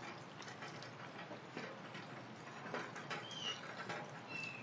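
Rain pattering steadily during a thunderstorm, with many irregular drops and drips. A bird gives two short high chirps near the end.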